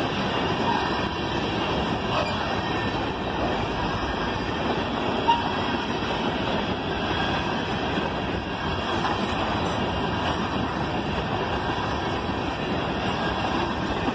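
Freight train cars rolling past: a steady noise of steel wheels running on the rails, with a few brief knocks.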